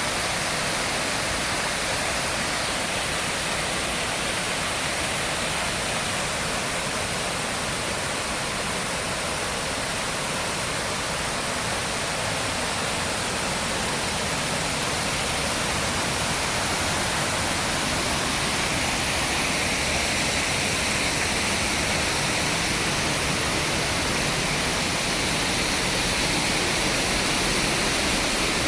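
Nabegataki waterfall: water falling into its pool with a steady, even rush and no let-up.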